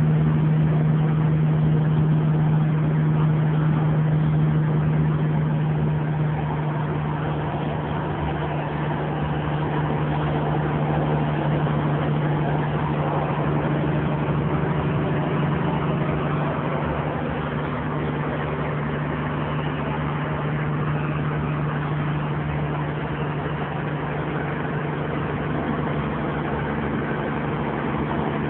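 Kenworth semi-truck's diesel engine running steadily under load on an uphill climb, heard from inside the cab as an even low hum with road noise.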